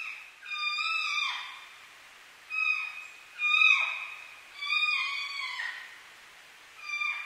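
An animal calling over and over: five clear, whistle-like calls, each about half a second to a second long and sliding down in pitch at the end.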